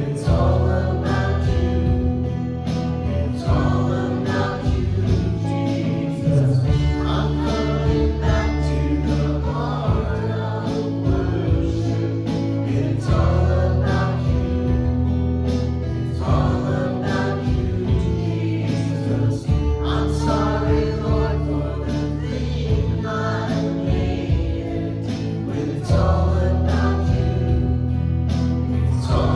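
Contemporary worship music: a live band with sustained bass under several voices singing together.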